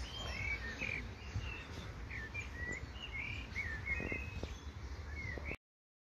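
Garden birds chirping: many short, quick calls and little rising and falling notes, over a low steady background noise. The sound cuts off suddenly near the end.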